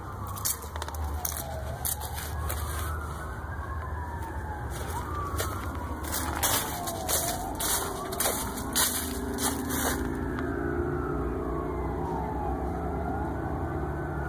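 Several emergency-vehicle sirens wailing at once, their pitches sweeping slowly up and down and overlapping. A low steady rumble runs underneath, with scattered sharp clicks.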